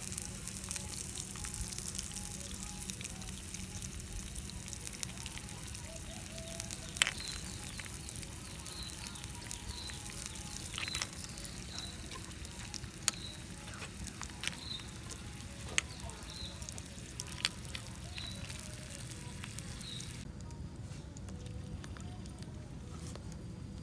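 Food sizzling on a hot rock over a wood fire, a steady hiss broken by a few sharp pops from the fire. The high hiss drops away near the end.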